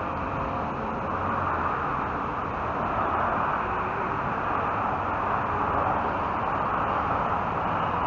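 Steady road traffic noise: surrounding cars idling and creeping in stopped traffic, an even hiss and rumble with no sudden events.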